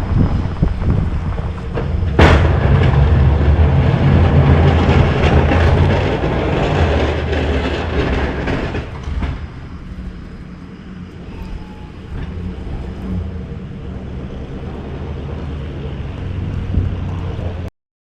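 A snow-plowing vehicle's engine running with a heavy, steady rumble and rushing noise. A sharp knock comes about two seconds in, the sound stays loud until about nine seconds in and then eases off, and it cuts off suddenly near the end.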